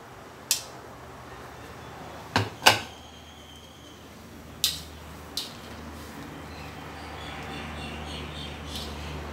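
A few sharp clinks and knocks of a metal ladle and utensils against a ceramic bowl and the cooking pot, the loudest pair about two and a half seconds in, one ringing briefly. Beneath them is a low steady background that slowly grows louder.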